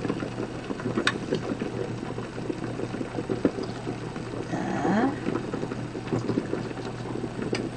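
A pot of liquid bubbling steadily on the stove, a continuous patter of small bubbles. A short rising hum comes about five seconds in.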